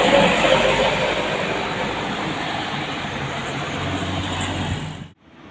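Truck passing close by on an uphill road, its engine and tyre noise loud at first and then fading, followed by a steady low engine hum from a car driving up behind it. The sound cuts off suddenly near the end.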